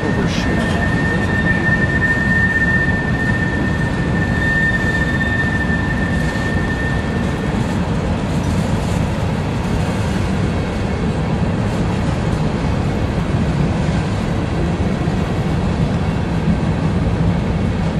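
Freight train of covered hopper cars rolling past close by: a steady rumble of steel wheels on rail. A steady high-pitched squeal runs over it for roughly the first seven seconds, then stops.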